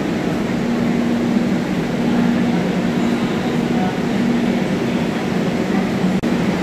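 Metro platform ambience: a stationary metro train hums steadily with its doors open, over the noise of a crowd of passengers walking off and pulling wheeled suitcases.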